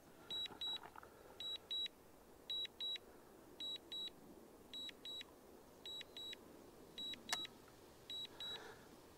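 DJI Mini 2 remote controller sounding its return-to-home alert: a high double beep repeating about once a second. A single sharp click comes about seven seconds in.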